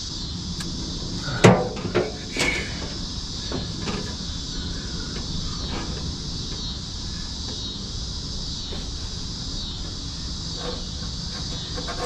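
Insects chirring steadily outdoors, with a few sharp knocks and clicks, the loudest about a second and a half in and another about a second later.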